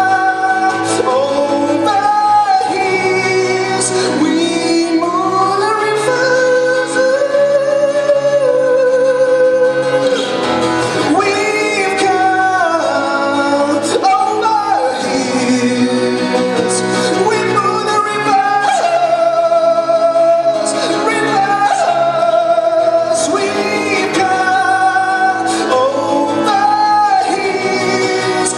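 A man singing with his own acoustic guitar accompaniment, the voice holding long notes that slide up and down over strummed chords.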